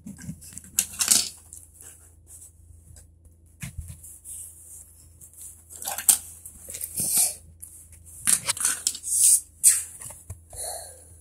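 Handling noise: irregular rustles and short clicks as small plastic toy bricks are picked up and fitted together.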